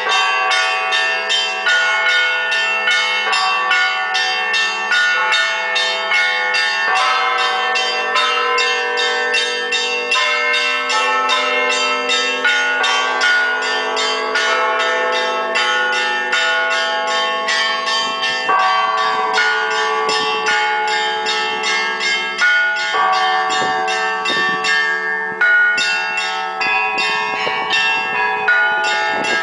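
Russian Orthodox monastery bells rung in a festive Easter peal: small bells struck rapidly over the steady ring of larger, deeper bells.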